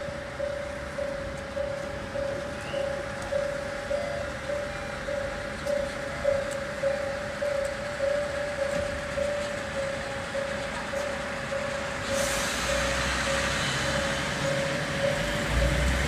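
Railway level-crossing warning bell ringing steadily, about one and a half strikes a second on one pitch. From about twelve seconds in, an Aizu Railway diesel railcar draws alongside, its engine and wheel noise swelling under the bell, with a low rumble near the end.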